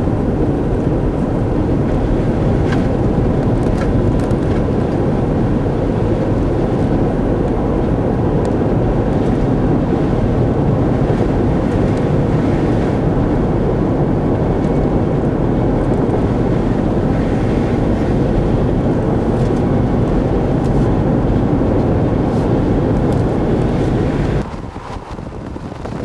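Steady road and engine noise heard from inside a moving car, with wind rushing past; it drops off abruptly near the end.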